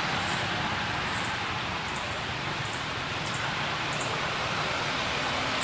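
Steady outdoor background hiss, with faint short high chirps repeating about every half second to second.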